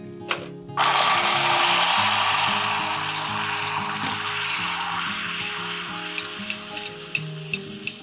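Red wine poured into hot caramel in a stainless steel saucepan: a loud sizzle starts suddenly about a second in and slowly fades into scattered crackling pops as the mixture bubbles.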